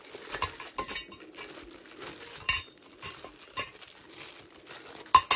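Lightweight hollow metal broom-handle pipe sections clinking against each other as they are slid out of a plastic bag and set down: a handful of separate light clinks with brief ringing, the loudest near the end.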